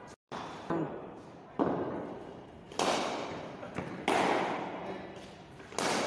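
Cricket ball knocks in an echoing concrete hall: about five sharp cracks of ball on bat and on the hard floor and walls, each ringing out with a long echo, the last one as the bat swings through near the end.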